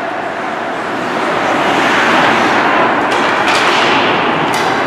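Ice hockey game noise in a rink: a steady wash of skating and play that swells about a second in, with a few sharp knocks in the second half.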